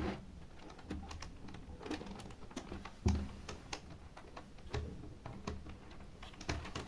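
Scattered plastic clicks and light knocks from an HP computer keyboard being handled, at an irregular rate, with a few slightly louder knocks spread through.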